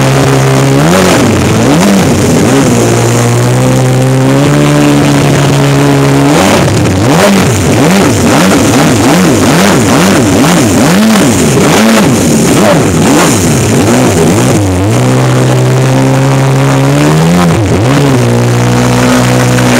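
Yamaha SuperJet stand-up jet ski's two-stroke engine running hard across open water, its pitch rising and falling. Through the middle it surges up and down in quick repeated swells, about one and a half a second, then holds steady and dips near the end, with the hiss of spray under it.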